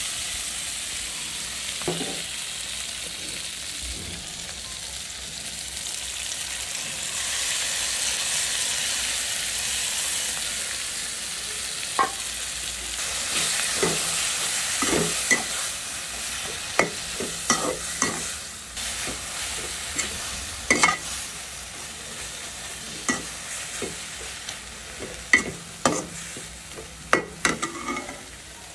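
Pointed gourd and mustard paste frying in a metal kadai, sizzling steadily, with the scrape and clink of a perforated metal spatula stirring against the pan. The sizzle swells for a few seconds a third of the way in. From the middle on, the spatula's knocks on the pan come more often.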